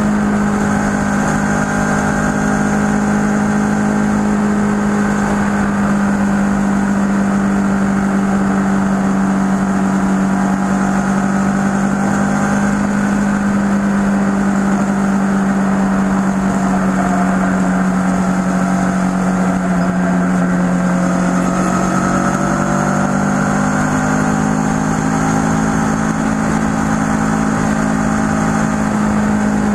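Kawasaki ER-6n's 649 cc parallel-twin engine running at steady cruising speed. The engine note holds even, eases slightly about two-thirds of the way through, then picks up again.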